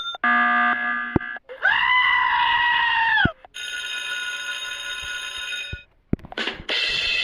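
A run of short meme sound-effect clips, about a second or two each with brief breaks between them: a steady tone, a scream-like call that rises, holds and then drops, a longer held ringing tone, and another pitched clip starting near the end.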